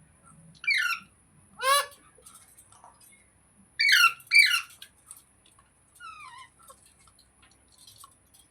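Parrot squawking: loud, harsh short calls, one about a second in, another near two seconds, a quick pair around four seconds, and a fainter call about six seconds in.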